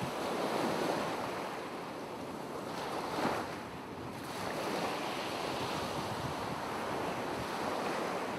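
Ocean waves washing steadily, with a short swell of surf about three seconds in.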